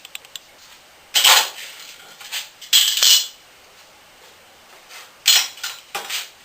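Metal objects clattering and clinking in four short bursts: one about a second in, one around three seconds, and two close together near the end.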